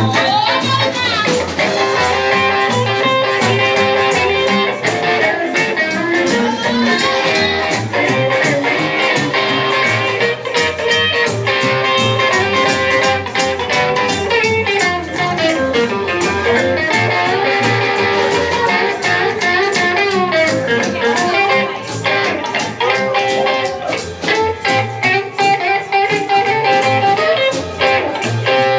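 Live band playing a blues-style number: electric archtop guitar leading over upright double bass and drums with a steady beat, with some sliding guitar notes partway through.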